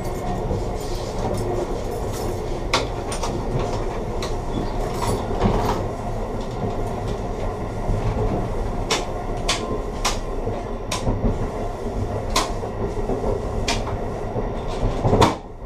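Amtrak Vermonter passenger train running on the track, heard from inside the rear of the last car. A steady rumble of wheels on rail is broken by irregular sharp clicks. Near the end there is a brief louder rush, and then the sound drops suddenly.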